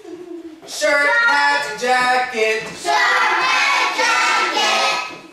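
Young children's voices singing together in short sung phrases of held notes that step up and down in pitch.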